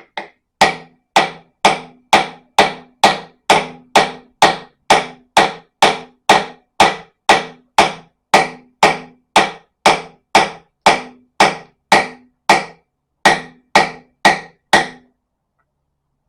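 A hammer striking a socket used as a drift, driving Welsh (core) plugs into an engine block, about thirty sharp blows at roughly two a second, each with a short metallic ring. There is a brief pause near the end before the last few blows.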